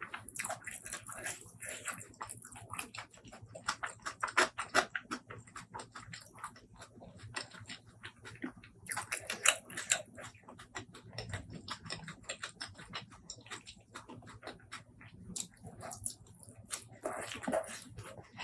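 Close-miked eating sounds: wet chewing and mouth smacking in an irregular stream of small clicks, with louder bursts a few times.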